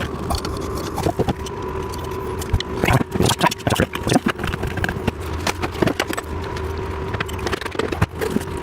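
Small metal clicks, taps and scrapes as bolts are started and turned with an Allen key in an office chair's metal mechanism, busiest around three to four seconds in, over a steady hum from a running diesel heater.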